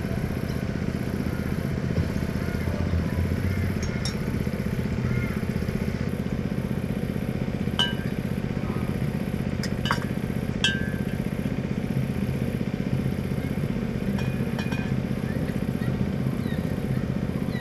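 A steady motor drone with a few sharp, ringing glass clinks partway through, as the collecting bottle is swapped under the funnel.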